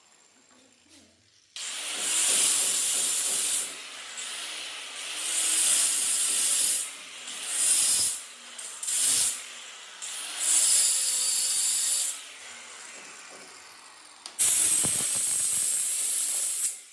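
Handheld electric stone cutter with a diamond blade dry-cutting a granite strip. The motor starts about a second and a half in, and the cutting noise grows loud and falls back several times as the blade bites into the stone. It dips for a couple of seconds near the end before one more loud cut.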